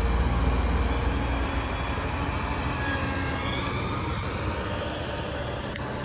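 Claas Lexion combine harvester's diesel engine running as the machine drives away along the road, the engine sound slowly fading.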